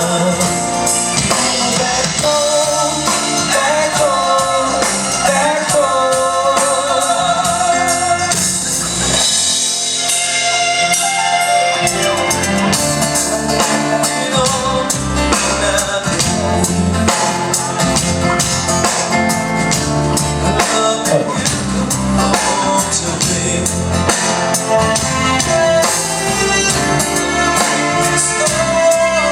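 Live band music with a singer's wavering sung lines over the first several seconds. The bass and drums thin out briefly, then the full band comes back in with a strong low end about twelve seconds in.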